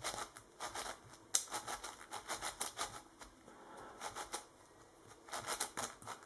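YJ MGC magnetic 7x7 speed cube turned by hand through a permutation algorithm: irregular runs of quick plastic clicks as its layers and slices snap round.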